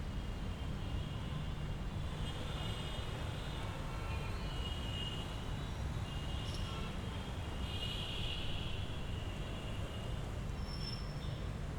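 Street ambience: a steady low rumble of traffic, with faint high-pitched tones coming and going over it.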